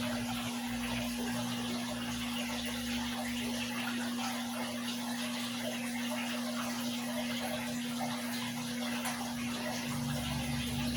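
Guppy aquarium water splashing and running steadily, the sound of the tank's circulating water, over a constant low hum.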